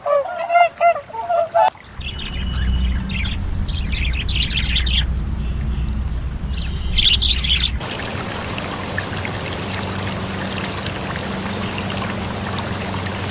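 A swan gives a run of honking calls for under two seconds. Then the sound changes abruptly to small birds chirping in short bursts over a low rumble, and after that to a steady hiss.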